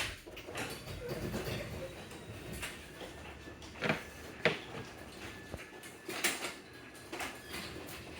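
Wall-mounted garage door opener starting with a click and running with a steady motor hum and faint whine as the garage door moves, with several knocks and clacks from the door along the way.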